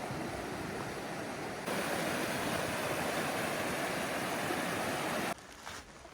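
Steady rush of flowing water, which gets louder at a sudden cut about a second and a half in. It stops abruptly near the end, where footsteps take over.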